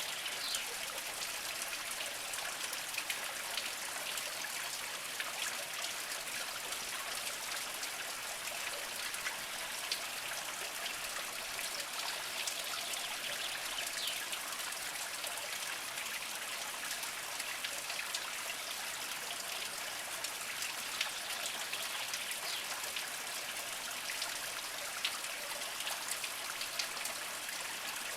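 Small mountain spring trickling slowly over mossy rocks: a steady, even wash of running water flecked with small drips and splashes.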